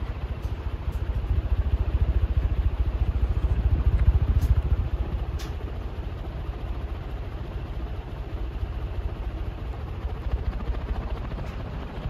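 Banvil/Envirofan Silver Line industrial ceiling fan running, its blades pushing air past the microphone in a steady low, fluttering whoosh that swells about four seconds in and then eases back.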